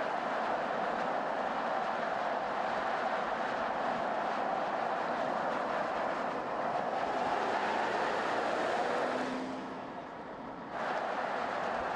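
Steady road noise of a vehicle at highway speed: tyre roar on asphalt and rushing wind. It fades briefly near the end and comes back abruptly.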